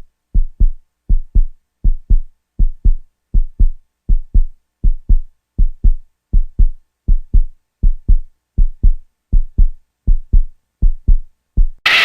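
Heartbeat sound effect: deep double thumps, lub-dub, repeating steadily at about 80 beats a minute. Near the end it is cut off by loud music.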